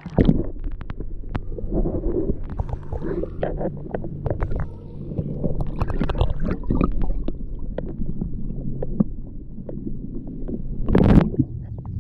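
Muffled underwater sound from a camera held just below the lake surface: water churning and bubbling with many small clicks and knocks as a bass is held and let go. A louder rush comes near the end.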